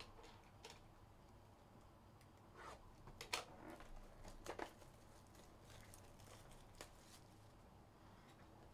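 Near silence, broken by a few faint taps and scrapes as a cardboard trading-card hobby box is handled, the clearest about three and a half seconds in.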